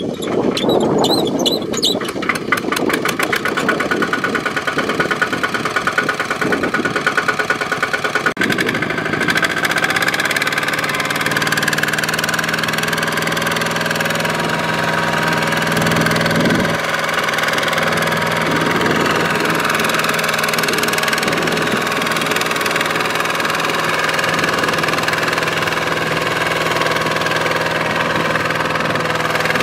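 Kubota RT120 walking tractor's single-cylinder diesel engine starting up, its firing beats quickening over the first few seconds, then running steadily.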